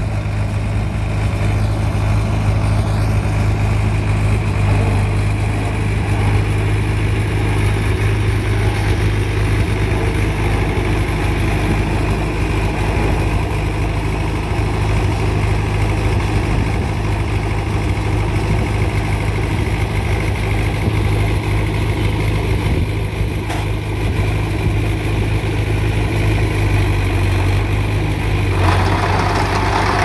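Vermeer M475 trencher's engine running steadily at constant speed. Near the end a rough, gritty noise joins as the trencher's digging chain cuts into the gravel.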